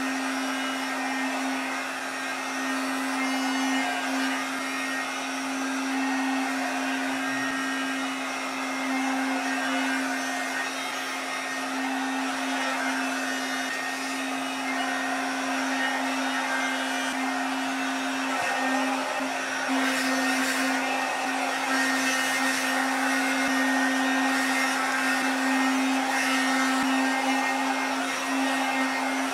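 Vitek hair dryer with a round brush attachment running steadily, a rush of blown air over a constant hum from its motor.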